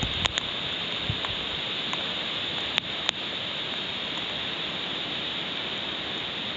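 Steady rush of flowing stream water, with a couple of sharp clicks about three seconds in.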